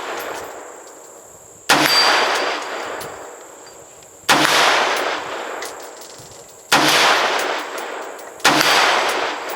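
AR-15 rifle firing four single shots, about two to three seconds apart. Each report trails off in a long echo.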